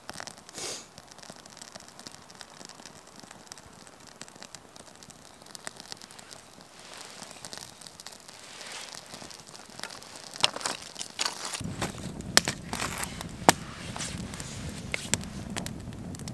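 Wood fire crackling. First a small kindling fire with faint crackles and light wooden clicks as split sticks are set against it, then about twelve seconds in a larger fire of split logs, with a steady low rush of flame and frequent sharp snaps.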